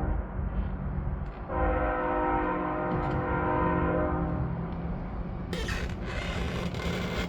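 Ominous music with long held, horn-like chords, then a harsh hiss near the end.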